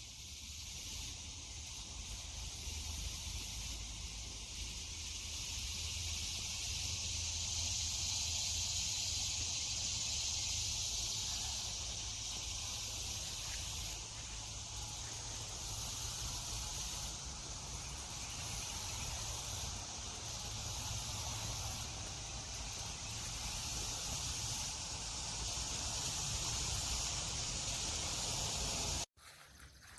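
Outdoor insect chorus: a steady high hiss with a higher shimmer that cuts in and out every second or two, over a low rumble.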